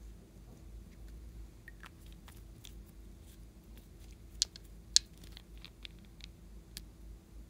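Small plastic bottles and capsules clicking and tapping against each other as they are handled, with two sharper clicks near the middle.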